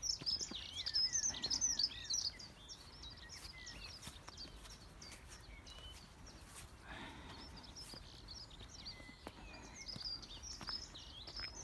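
Wild birds singing: a quick run of high chirps and warbling notes in the first two seconds, sparser calls through the middle, and more chirping near the end, over faint outdoor background noise.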